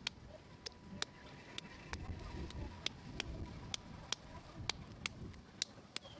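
Soft low pats and thuds of hands kneading and shaping a lump of potter's clay, with sharp irregular clicks about two a second throughout.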